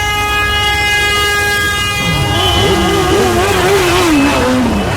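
A vehicle horn sounds one steady held note over a low engine rumble and stops about two seconds in. It is followed by a wavering pitched sound that wobbles up and down and slides downward near the end.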